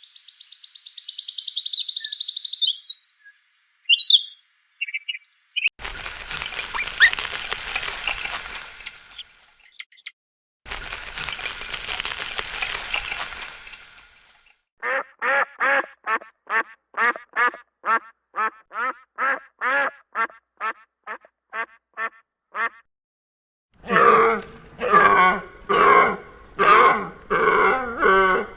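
Farm animals and birds calling. A high, fast trill comes first, then two noisy stretches, then a long run of short calls repeated about twice a second, and near the end lower, denser calls.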